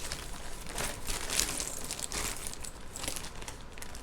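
Crinkling and rustling of packaging being handled while jewelry is taken out of a box, in irregular crackly bursts.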